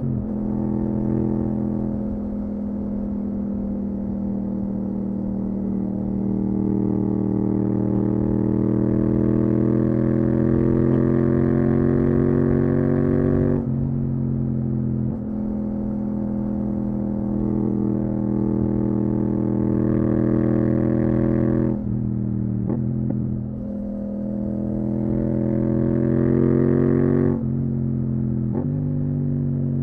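Yamaha MT-07's parallel-twin engine through a full Akrapovic titanium exhaust, heard from on board while riding: it pulls steadily under throttle with the pitch slowly climbing. The throttle is rolled off about halfway through and twice more near the end, the note softening each time before it picks up again.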